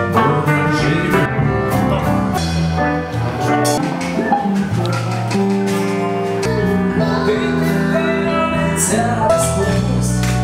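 A band playing live: sustained instrumental chords over a steady bass line and drum beat, with a voice singing in places.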